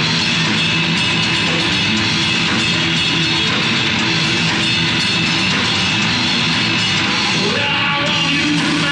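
Heavy metal band playing live on a VHS tape recording: electric guitar over drums and cymbals, dense and steady throughout.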